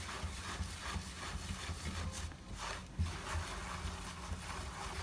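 Hands rubbing and rolling a ground fenugreek and egg-yolk mixture in a bowl, couscous-style: soft, steady scratchy rubbing with a couple of light knocks.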